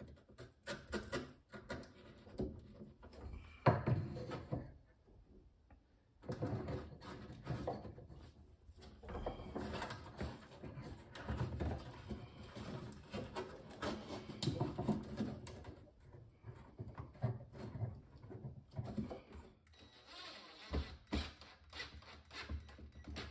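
Irregular knocks, scrapes and rustling of a wood strip and screws being handled and positioned on the particleboard floor of a sink cabinet, with no drill running.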